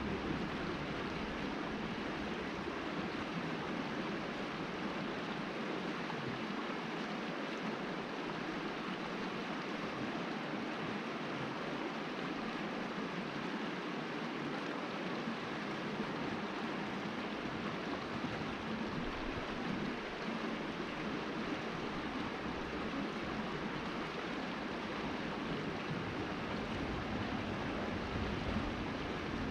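Steady rush of flowing creek water, unchanging throughout.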